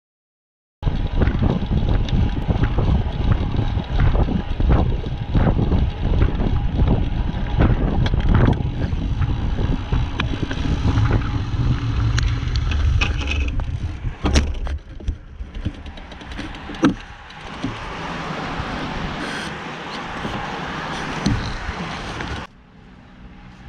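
Wind buffeting an action camera's microphone. The noise is rough and uneven, with scattered knocks, starts about a second in, eases after about fifteen seconds and drops off sharply near the end.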